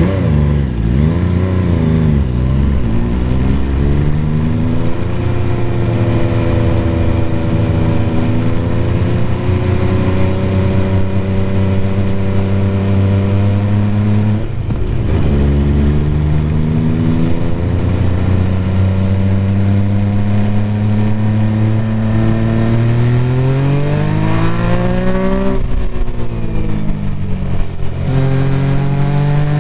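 MV Agusta Superveloce 800's inline three-cylinder engine and exhaust under way, heard through an external microphone. The engine note holds fairly steady for long stretches, dips abruptly once about halfway through, and near the end climbs under acceleration, drops sharply as at an upshift, and climbs again.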